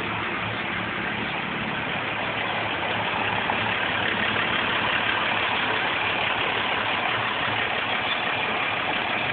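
Diesel truck engine idling steadily, a little louder after about three seconds.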